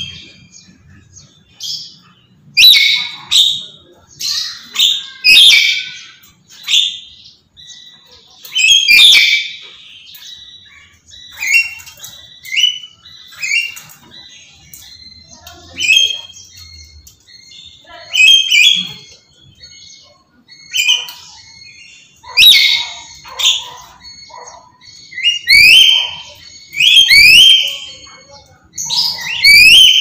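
Black-capped lory screeching loudly over and over, a string of short calls about a second or two apart, several rising in pitch near the end.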